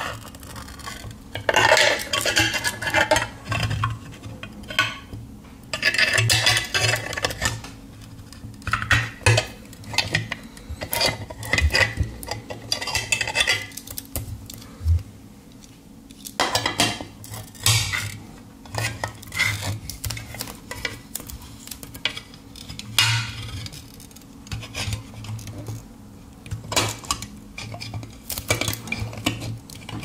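Can-opener blade of a Victorinox Swiss Army knife cutting through the rim of a tin can lid in short levering strokes: uneven bursts of metallic scraping and crunching, broken by sharp clicks.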